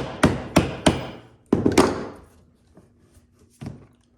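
Hammer blows on a plastic toolbox while knocking out a stopper piece: four quick strikes, a short pause, two more, then a lighter knock near the end.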